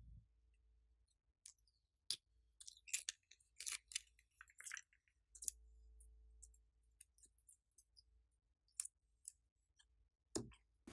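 Slime clicking and crackling as it is peeled from a mould, stretched and pressed by hand. The clicks come in a dense run about two to five seconds in, then a few scattered ones.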